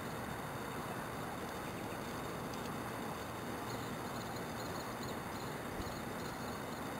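Steady outdoor background rush with no distinct events, and faint high chirping for a couple of seconds near the middle.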